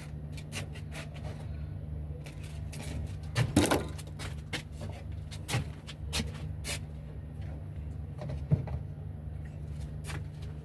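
Scattered knocks, clicks and scrapes from things being handled during cleaning, over a steady low hum. The loudest knocks come about three and a half seconds in and again near eight and a half seconds.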